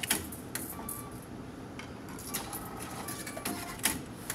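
Restaurant meal-ticket vending machine printing and dispensing two tickets into its outlet, with several sharp clicks, the loudest near the end.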